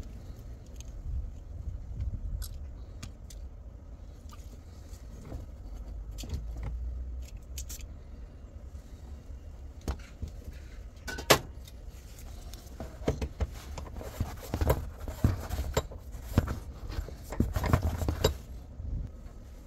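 Scattered metallic clicks and knocks from hands and tools working on a gearbox's shift actuator, over a low rumble. A sharp knock about eleven seconds in is the loudest, and the clinking grows busier over the last few seconds.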